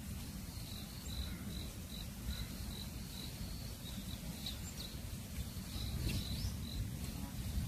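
An insect chirping steadily in an even rhythm, a short high note about two and a half times a second, over a low outdoor rumble.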